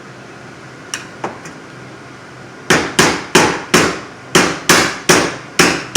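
Rubber mallet striking a bent toy-tank wheel rod to straighten it: two light taps, then about halfway in a run of about nine firm blows, roughly three a second.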